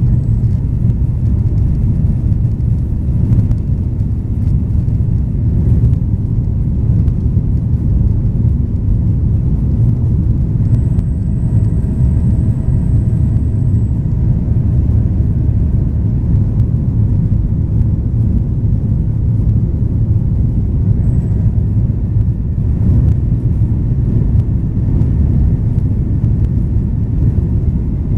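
Steady low rumble of a Boeing 737-900ER's cabin during the climb after takeoff, heard from a window seat behind the wing: the CFM56-7B turbofans running at climb power, with airflow noise over the fuselage.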